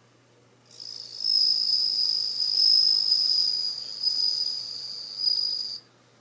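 Male Japanese bell cricket (suzumushi) singing, its raised forewings rubbing together: one high, steady ringing trill that starts about a second in and stops abruptly near the end.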